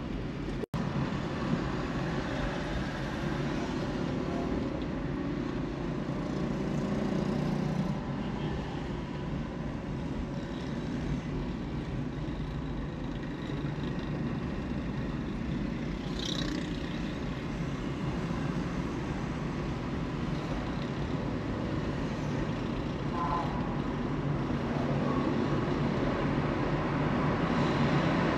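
Steady road noise of a car driving, a low tyre and engine rumble with surrounding traffic. The sound drops out for an instant under a second in, and there is a short high squeak about halfway through.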